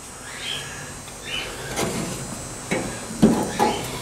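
Light knocks, clicks and scrapes of plastic and sheet metal as the release clips on a Samsung dryer's top cabinet frame are pushed down by hand, a few separate taps in the second half.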